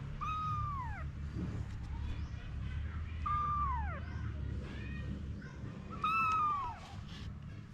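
Cat meowing: three loud meows, each falling in pitch, with fainter meows between them, over a steady low rumble.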